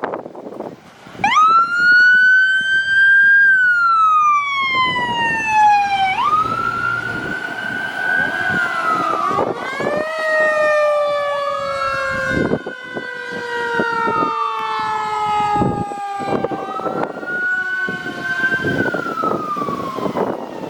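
Fire apparatus sirens wailing as the rigs respond. One siren rises sharply about a second in and then cycles slowly up and down. From about halfway through, more sirens overlap, one of them a lower tone that falls slowly and steadily.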